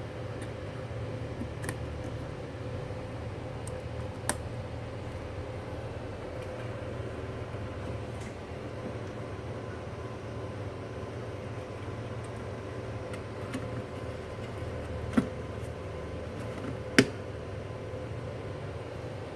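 Steady low machine hum with a faint steady tone, broken by three short sharp clicks about 4, 15 and 17 seconds in.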